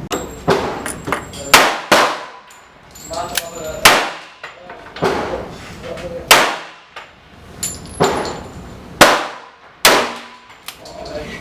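Gunshots, about eight loud reports at irregular intervals with softer ones between, each followed by a ringing, echoing tail.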